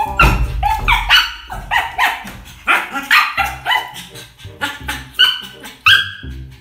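Pug barking over and over in short, sharp barks, about two a second.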